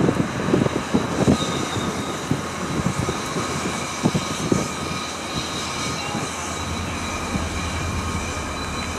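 Class 68 diesel-electric locomotive running, its Caterpillar V16 engine holding a steady low hum under a few high steady whining tones. Wind buffets the microphone in gusts near the start and again about four seconds in.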